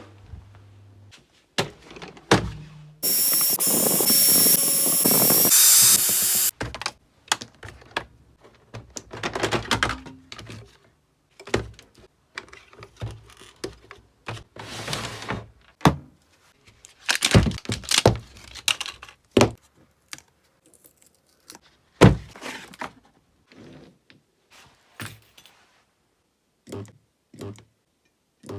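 Knocks and clicks of a robot vacuum cleaner's parts being handled and taken apart. A loud, even noise starts about three seconds in and lasts about three and a half seconds.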